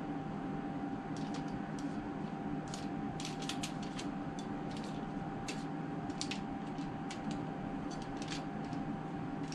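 Aluminium foil crinkling in short, scattered crackles as it is pressed around pepper halves on a baking tray, over a steady low hum.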